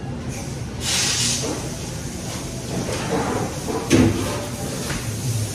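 Kitchen clatter: a short hiss about a second in and a sharp knock about four seconds in, over a steady low hum.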